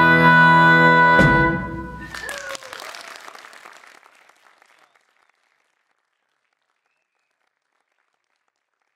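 Live blues band holding its final chord, cut off by a sharp closing hit a little over a second in. Audience applause follows and fades out over the next few seconds, leaving silence.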